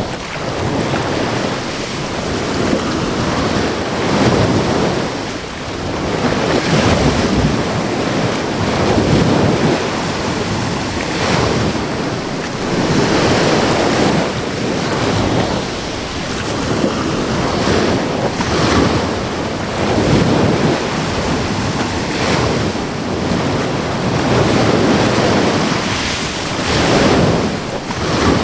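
Ocean waves breaking and washing onto the shore, a continuous surf that swells and eases every two to three seconds, with wind on the microphone.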